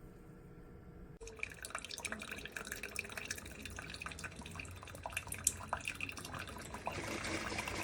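Single-serve pod coffee maker dispensing its brew into a cup, a busy trickle of drips and splashes that starts suddenly about a second in.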